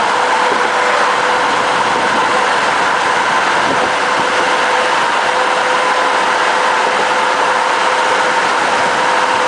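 Steady road noise inside a car's cabin at highway speed: tyres on the road and the engine running, with a constant hum under the rush.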